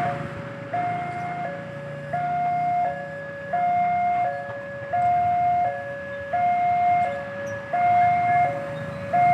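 Railway level-crossing warning siren sounding a two-tone hi-lo alarm, switching between a higher and a lower tone about every 0.7 seconds, the higher tone louder.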